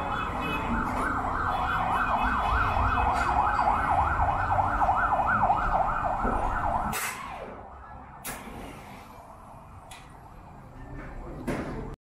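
A siren in fast yelp mode: a wailing tone sweeping up and down about four times a second over a low rumble. Both cut off suddenly about seven seconds in, leaving a few faint clicks.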